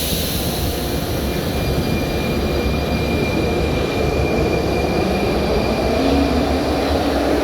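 Rail vehicle running, a steady loud rumble with a thin high whine held over it.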